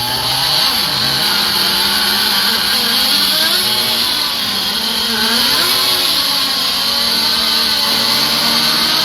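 Nitro-powered RC racing boats running on the water: several small high-revving engines at once, giving a steady high whine whose pitch rises and falls as the boats pass and turn.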